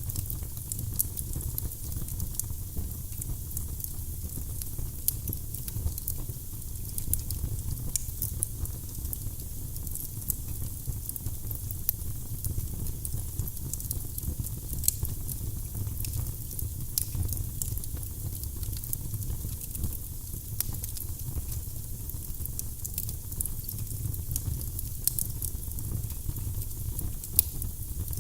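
Firewood burning in a fireplace: a steady low rumble and hiss of the flames with frequent sharp crackles and pops from the burning logs.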